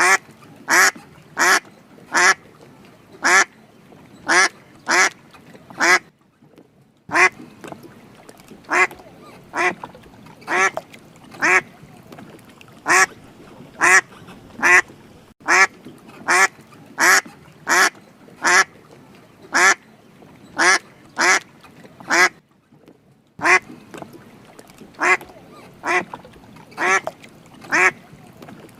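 Duck quacking over and over: short, separate quacks about every half second to a second, with two brief pauses.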